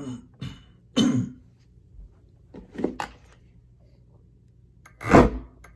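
A person coughing and clearing their throat several times in short, irregular bursts, loudest twice near the end.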